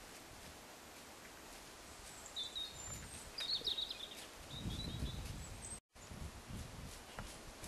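Outdoor ambience: low rumbles of wind on the microphone, small birds chirping high a few times about a third to half way in, and faint soft hoofbeats of a trotting horse on a rubber arena surface. The sound cuts out for a moment about three-quarters through.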